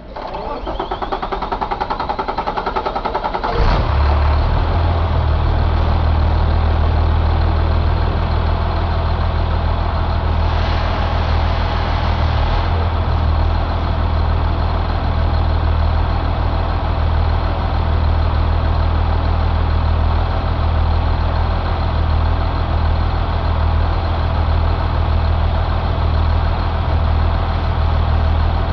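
2005 Caterpillar C7 inline-six diesel engine cranking on its starter for about three and a half seconds, then catching and settling into a steady idle. A brief hiss rises over the idle about ten seconds in.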